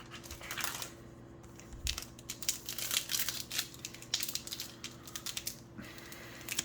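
A trading-card pack wrapper crinkling and tearing as it is worked open by hand: a dense run of irregular crackles that stops about a second before the end. A faint steady hum sits underneath.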